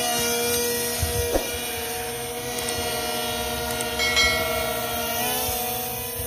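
JJRC M02 RC airplane's twin electric motors and propellers whining steadily while it hangs in a hover, the pitch wavering about five seconds in as the throttle shifts. Two short low thumps come about a second in.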